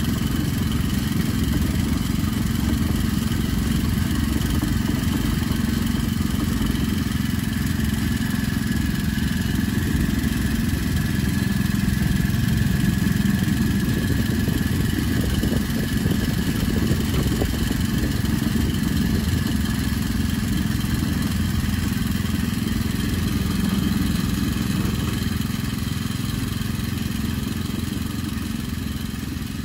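Miniature 7 1/4 inch gauge locomotive running steadily along the track: a constant low drone with a faint high whine above it, easing off near the end.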